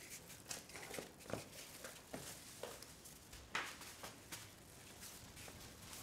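Scattered soft footsteps, light knocks and rustles of a carried bag, irregular and quiet.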